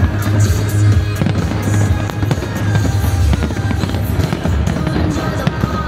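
Fireworks display bursting overhead, with many sharp bangs and crackles in quick succession, over loud music with a heavy, steady bass.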